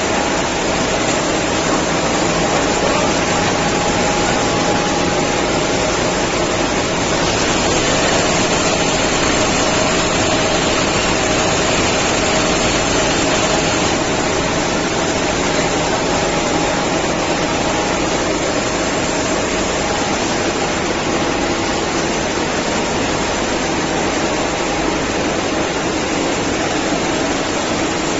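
Gypsum board production line running: a loud, steady machinery noise with a faint steady hum, with no distinct knocks or strokes.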